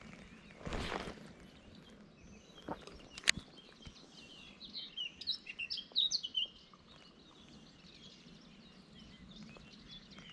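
Small birds chirping and twittering, a busy run of short high chirps about four to six seconds in, over faint steady outdoor background noise. A short swish comes near the start and a single sharp click a little after three seconds.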